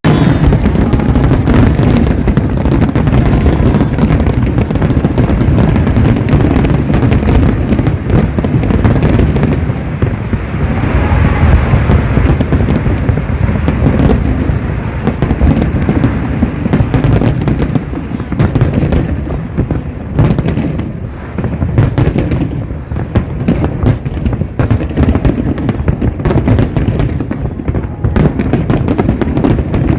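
Fireworks display with aerial shells bursting in a dense, continuous barrage of booms and sharp bangs over a deep rumble. It eases briefly about two-thirds of the way through.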